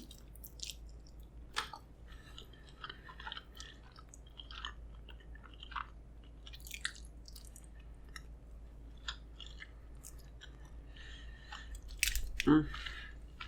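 Close-miked chewing of pizza: soft, irregular mouth smacks and wet clicks, with a brief hum-like voiced sound near the end.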